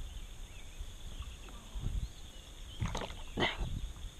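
A hooked crappie splashing at the surface as it is reeled to the kayak and lifted from the water, a few quick splashes about three seconds in, over a low rumble of wind on the microphone.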